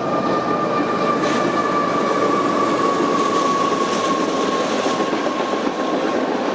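Freight train of tank cars rolling past close by: a steady rumble of wheels on rail with a high, thin squeal held throughout that slowly drifts lower in pitch, and a short clank about a second in.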